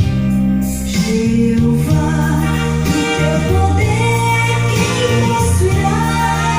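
A song with singing, bass and other instruments, played back at a steady loud level through an Accuphase E-202 integrated amplifier and loudspeakers.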